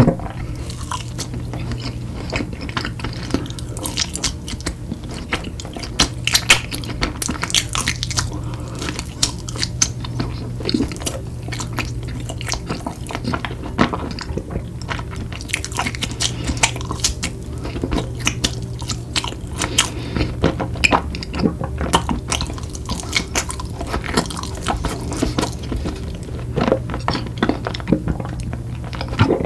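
Close-miked eating sounds of someone chewing and biting desserts, with frequent crisp crunches and wet mouth clicks coming irregularly throughout. A steady low hum runs underneath.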